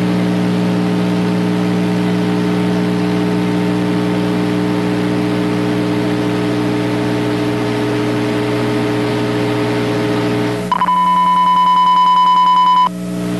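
Steady electrical buzzing hum with hiss. About eleven seconds in it cuts to a single steady high beep tone for about two seconds, then the hum comes back.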